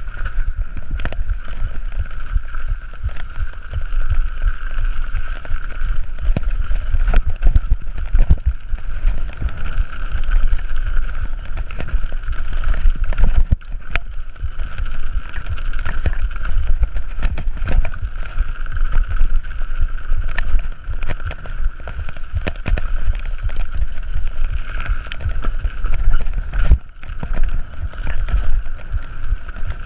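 Mountain bike descending a dirt forest trail at speed: wind buffeting the camera's microphone, with frequent rattles and knocks from the bike over roots and bumps and a steady high-pitched hum throughout.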